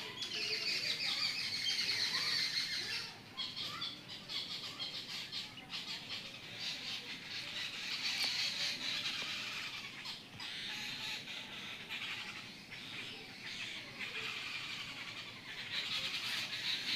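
A dense chorus of many birds calling and chirping at once, the overlapping high calls swelling and fading, loudest about two seconds in, around the middle and near the end.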